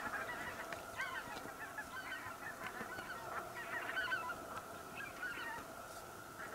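A large migrating flock of wild geese calling in flight, many faint overlapping honks heard at a distance.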